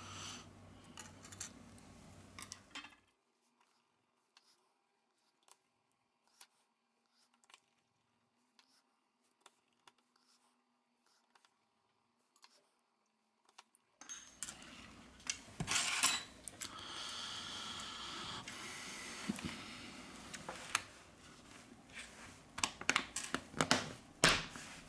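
Small tools and phone parts handled on a workbench during smartphone reassembly: scattered light clicks and taps, a long nearly silent stretch in the middle, then busier clicking and a brief scraping sound.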